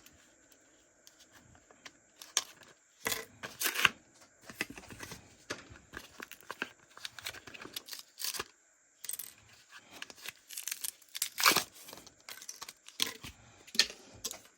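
Plastic packaging of fishing tackle being torn open and handled: irregular rips, crinkles and clicks, with the loudest tears about three to four seconds in and again near the twelfth second.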